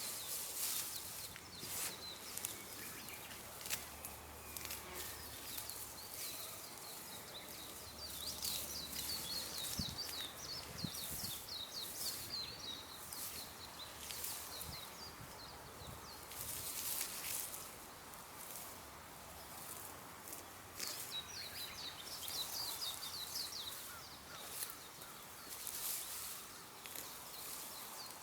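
Wild birds singing in fast runs of high chirping notes, in two spells, over short rustling swishes through grass.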